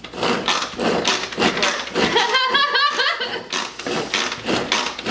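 Pampered Chef pull-cord manual food processor chopping yellow onions: its cord is yanked again and again, each pull a quick zip of the blades, about three or four a second. A person's voice breaks in briefly about two and a half seconds in.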